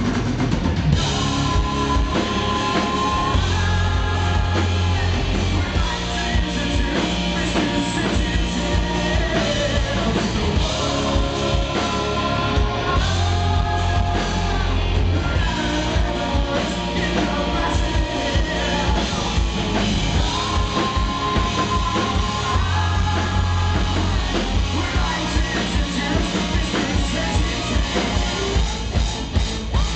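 Live rock band: a male lead singer belting a melody over guitar and drum kit, with steady low bass notes underneath. The drum hits come through more sharply near the end.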